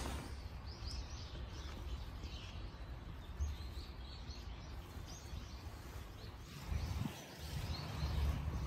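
Birds chirping in many short, high calls, over a low rumble that grows louder near the end.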